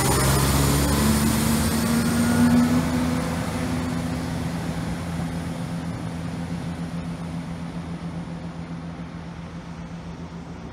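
CrossCountry Class 170 Turbostar diesel multiple unit running away from the listener, its underfloor diesel engines droning. The engine note steps up about a second in. The wheel and rail hiss fades out early, and the drone dies away steadily as the train recedes.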